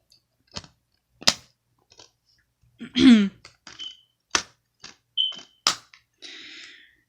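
Plastic DVD case being handled: a string of sharp clicks and snaps, a couple of short squeaks, and a soft rustle of plastic near the end.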